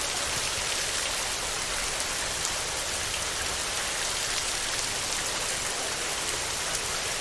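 Heavy rain falling steadily on a tin roof: an even hiss speckled with many small drop ticks.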